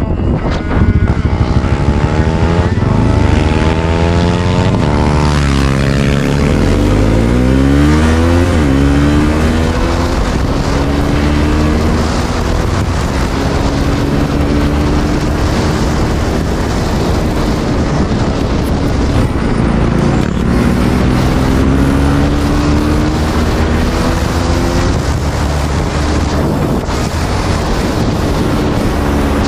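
Single-cylinder motorcycle engines running hard at speed, their pitch rising and falling repeatedly as they rev and change gear, with wind noise on the microphone. About five to eight seconds in, one engine's pitch climbs while another's falls, so the two cross.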